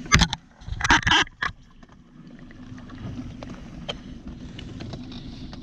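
Handling noise from a Dungeness crab being held and a plastic crab gauge being put against its shell: two loud knocks and rustles in the first second and a half, then a few faint clicks. A steady low hum runs underneath.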